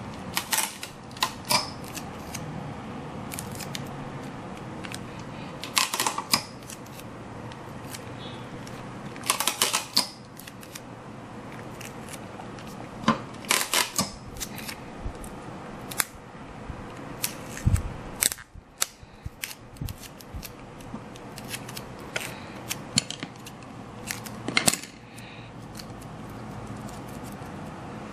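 Scissors snipping in short clusters of sharp cuts every few seconds, with a single low thump about two-thirds of the way through.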